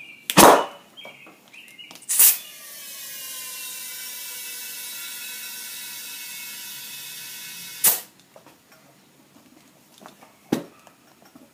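A loud bang as brake-cleaner vapour inside a lawn mower tire is lit, blowing the tire beads out onto the rim. About two seconds in, compressed air from a hose hisses into the tire through the valve stem for about six seconds with a faint whistle, and it stops with a sharp click.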